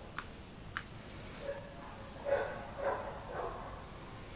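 A dog barking: three short barks about half a second apart, a little past halfway through.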